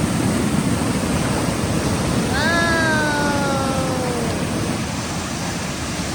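Steady rush of a waterfall and fast stream water. About two seconds in, a single drawn-out pitched call sounds over the water for about two seconds, sliding slowly down in pitch.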